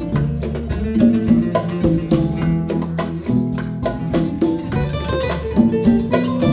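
A live band playing an up-tempo number: plucked guitars over keyboard, a bass line, congas and a drum kit, with notes struck in quick succession.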